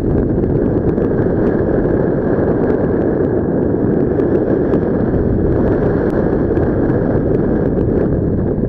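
Airflow from paraglider flight buffeting the microphone: a loud, steady rush of wind noise.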